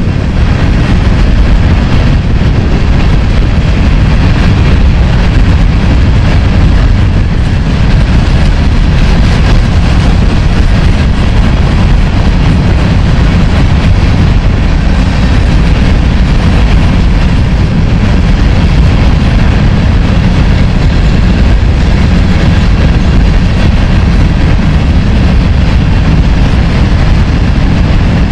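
Empty covered hopper cars of a freight train rolling past: a loud, steady rumble of steel wheels on rail.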